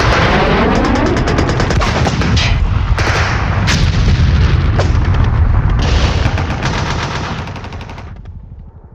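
Rapid machine-gun fire, a dense run of shots over a heavy low rumble, fading out near the end.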